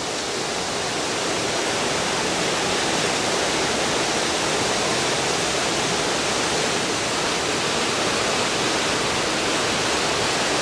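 Steady rushing of falling water, an even hiss with no breaks, swelling slightly in the first couple of seconds.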